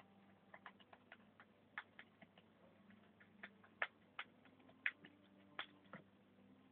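Gerbil gnawing and eating: faint, irregular sharp clicks and crunches, a few louder than the rest.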